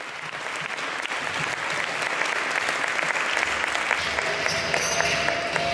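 Audience applauding, fading in from silence. About four seconds in, music starts under the clapping with a held note.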